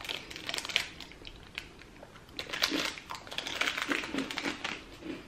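Plastic candy wrapper crinkling and crackling as it is handled and folded: a short spell of crackles at the start, then a longer one of about two seconds from around the middle.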